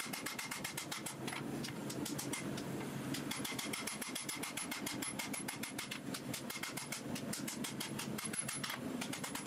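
Power hammer striking red-hot steel on the anvil in a fast, even run of blows, about five a second, drawing out a forged machete blade.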